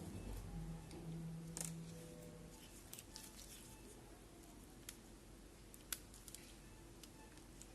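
Faint, scattered clicks and taps of small tools handling a phone circuit board, over a faint low hum.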